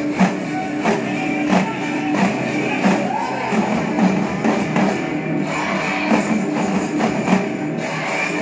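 Loud dance music with a strong, steady drum beat, about three beats every two seconds.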